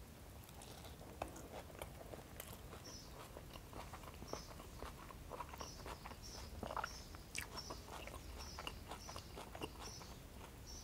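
Close-miked mouth sounds of a person chewing a bite of a çiğ köfte wrap: many small wet clicks and smacks at an uneven pace, quiet. A faint high chirp repeats about twice a second in the background from a few seconds in.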